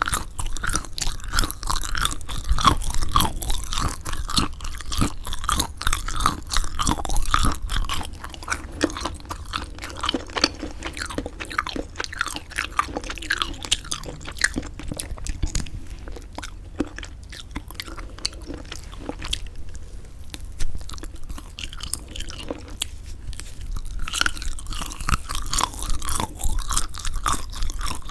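Close-miked chewing of semi-dried squid: moist, irregular chewing and biting sounds, quieter for a few seconds past the middle and then busier again near the end.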